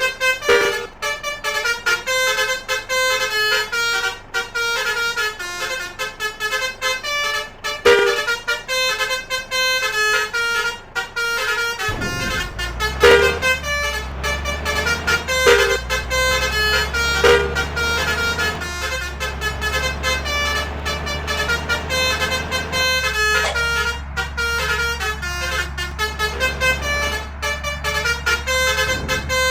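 Basuri musical air horn playing a fast tune of short, stepped notes. About twelve seconds in, a deep steady engine hum joins underneath.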